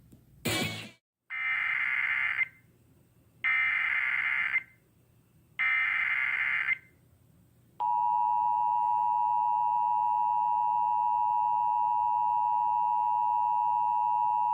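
Emergency Alert System tones: a short crackle, then three SAME digital header bursts, each a buzzing data screech of about a second with about a second between them, then the steady two-tone attention signal starting about eight seconds in. Together they announce a new alert, here a tornado warning.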